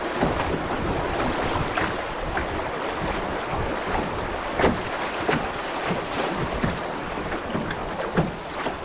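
Canoe running a set of swifts: rushing, churning river water around the bow, with irregular slaps and splashes of water against the hull and some wind on the microphone.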